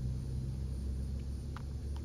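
A steady low hum of running machinery, with one faint, brief higher sound about one and a half seconds in.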